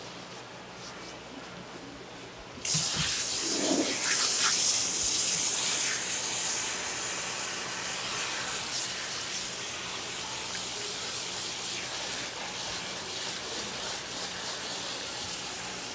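Tap water running onto sliced sea cucumber in a plastic basket as gloved hands rub and rinse the pieces. The water comes on suddenly about three seconds in, splashing loudest for several seconds, then runs on a little quieter.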